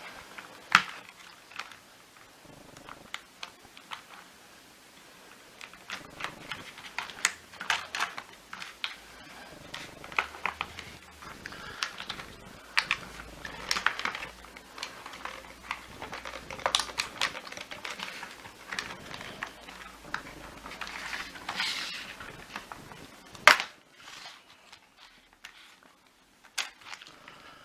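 Plastic parts of a Miele Triflex HX1 vacuum floor head being handled during disassembly: irregular clicks, taps and scrapes, with a sharp snap about a second in and another near the end.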